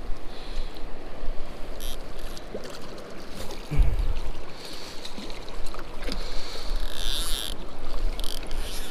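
River water rushing and splashing close to the microphone, over a steady low rumble, with a low thump about four seconds in.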